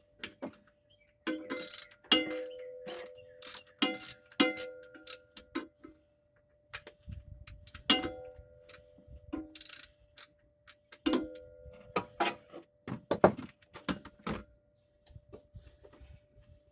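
Ratcheting socket wrench clicking in irregular spurts with metallic clinks as it backs out the lawn mower engine's oil drain plug.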